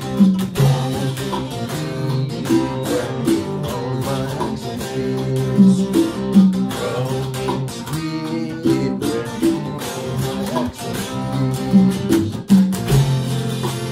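Electric guitar playing an instrumental passage of a song, sustained notes in a riff that comes round again about every six seconds.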